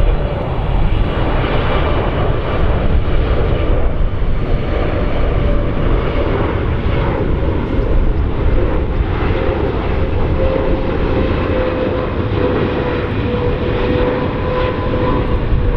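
Boeing 777-300ER's GE90 turbofan engines on final approach, passing low overhead: loud, steady jet noise with a whining tone that slides slowly down in pitch.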